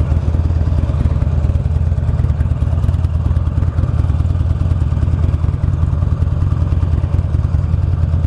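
Buell XB12 Lightning's air-cooled V-twin engine idling steadily, a deep even throb.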